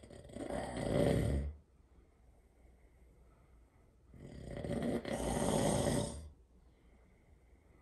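A sleeping person snoring loudly: two long snores about four seconds apart, the second one longer, with quiet breathing between them.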